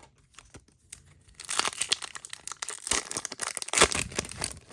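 A Disney Lorcana booster pack wrapper being torn open and crinkled by hand, a dense crackling that starts about a second and a half in and stops near the end.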